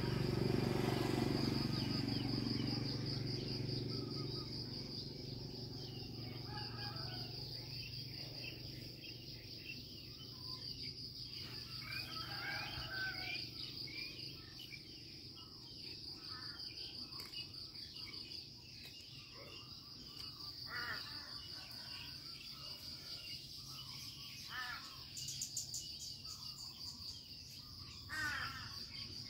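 Crickets trilling steadily in one high, unbroken tone, with birds giving many short chirps over it. A low rumble is loudest in the first few seconds and then fades out.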